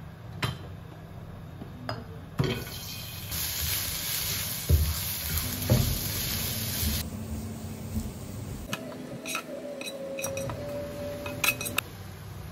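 Minced garlic sizzling in hot oil in a nonstick wok while a spatula stirs and knocks against the pan. The sizzle starts about three seconds in and cuts off suddenly a few seconds later, and sharp utensil taps and clinks follow.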